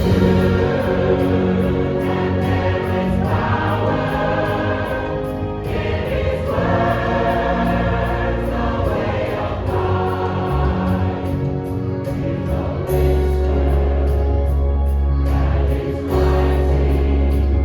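A choir singing Christian music, held sung notes over a sustained low bass note that enters about thirteen seconds in.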